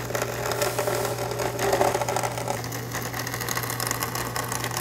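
Vertical bandsaw running with a steady motor hum, its blade cutting through the black plastic lower section of a 2015+ Ford Mustang's front air vent assembly along a tape line.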